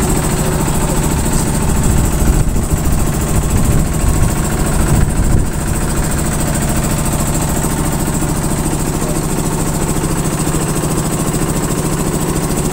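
Engine on a bagang lift-net fishing boat running steadily, with a low even drone; it is a little louder and rougher for a few seconds from about two seconds in.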